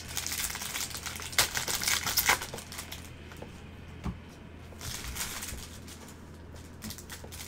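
A foil trading-card pack wrapper crinkling as it is pulled open and the cards slid out, with sharp crackles in the first two or three seconds. Softer rustles of the cards being handled follow later.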